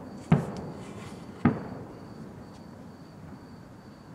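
Two fireworks shells bursting about a second apart, each a sharp bang that trails off briefly.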